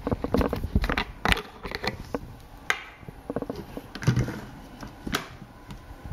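Clicks and knocks of a tall plastic food container being lifted, tilted and set back down on a countertop, its load of gummy bears shifting inside. The clatter is busiest in the first half and turns sparser later.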